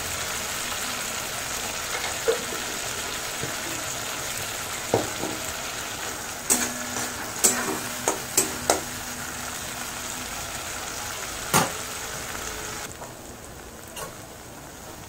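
Tomato paste and spice masala sizzling as they fry in oil in a steel kadai, with a metal spatula scraping and knocking against the pan several times. The sizzle drops quieter near the end.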